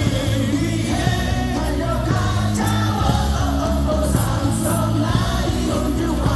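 A stadium crowd singing a baseball cheer song in unison over loud amplified music with a steady bass line.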